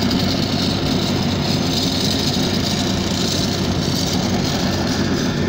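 Heavy road-construction machine's engine running steadily at idle or low revs, with a constant low hum.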